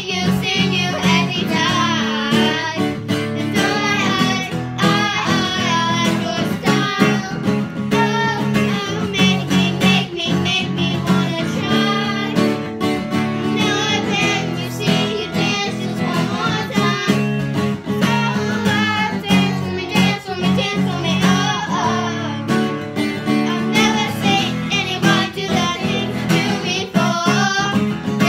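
Two girls singing a pop song together, accompanied by a strummed acoustic guitar.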